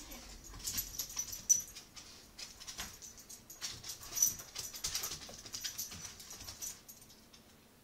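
Beagle puppy playing tug on a hardwood floor: rapid clicks and scrabbling of its claws on the boards, with a few short high whimpers. The sharpest clicks come about one and a half and four seconds in.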